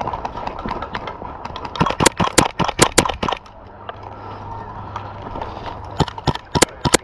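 Running footsteps with gear rattling, then from about six seconds in a quick string of sharp cracks from an airsoft pistol being fired, several shots a second.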